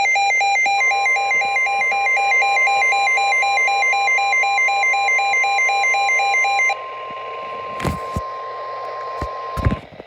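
An electronic weather-alert alarm beeps in a fast, regular two-tone warble until about seven seconds in. Beneath it, from about a second in until near the end, runs a single steady high tone: the 1050 Hz NOAA Weather Radio warning alarm tone, which signals that a warning message follows. A few sharp clicks come near the end.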